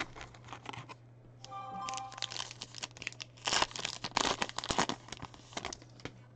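Plastic wrapper of a Topps Allen & Ginter trading-card pack being torn open and crinkled by hand. The crinkling comes in a run of quick crackles, loudest in the middle.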